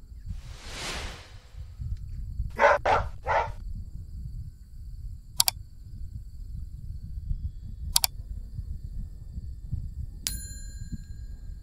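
End-screen sound effects over a low wind rumble: a whoosh about half a second in, three quick sharp sounds a little before three seconds, and two single clicks. About ten seconds in, a bell ding rings on as the notification bell graphic appears.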